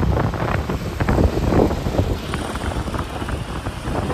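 Wind rushing over the microphone with road and traffic noise, riding on the back of a moving two-wheeler.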